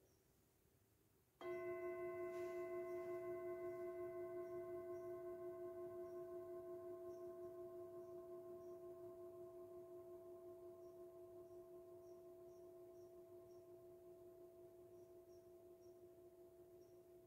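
A metal singing bowl struck once about a second and a half in, then ringing on with several overtones and a gently pulsing hum as it slowly fades.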